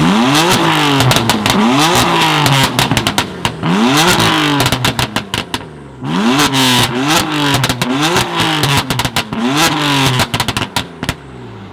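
A tuned sports car's engine being revved hard in repeated quick blips, its pitch rising and falling with each rev, with sharp exhaust pops and crackles as it comes off the throttle. Two runs of revving, with a short lull about halfway through.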